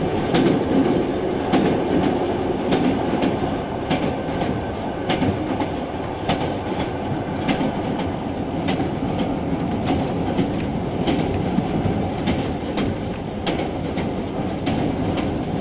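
Passenger train running along the track: a steady rumble with sharp, irregularly spaced clicks of the wheels over the rails.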